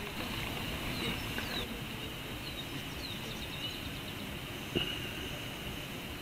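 Steady low vehicle rumble heard from inside a car cabin, with a few short bird chirps outside and one click about five seconds in.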